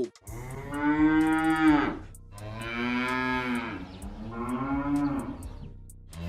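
Domestic cow mooing: three long moos in a row, with another starting at the very end.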